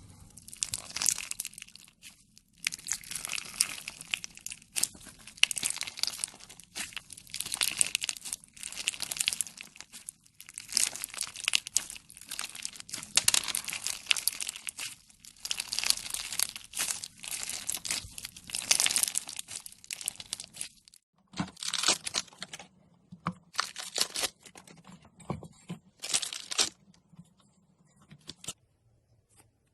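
Slime being squeezed and stretched by hand, a dense run of crackling, clicking squishes; after about twenty seconds it comes only in a few separate short bursts.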